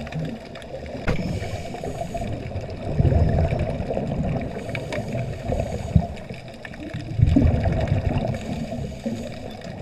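Underwater water noise picked up inside a camera housing: a steady rushing and gurgling, with louder swells of bubbling about three and seven seconds in, typical of a scuba diver's exhaled breath bubbles.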